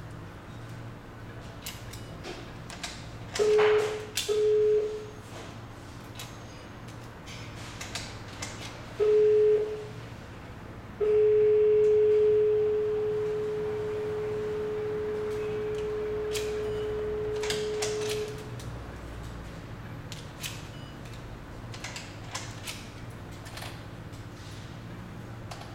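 Electronic key-card door lock's buzzer beeping at one steady pitch: two short beeps a few seconds in, a third a few seconds later, then one long tone of about seven seconds that drops in loudness after its first two seconds. Light clicks from handling the lock and cards fall around the beeps.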